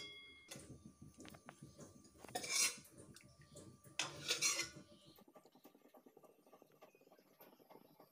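A metal spoon clinks once against a steel bowl with a brief ring, then scrapes against the bowl in two short strokes, about two and a half and four seconds in.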